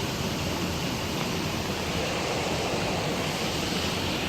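Steady rush of flowing water from a stream and small waterfall, an even hiss with no breaks.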